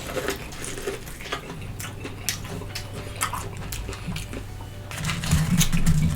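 Close-up eating sounds: chewing with irregular wet mouth clicks and smacks, and a low hum from the eater's voice about five seconds in.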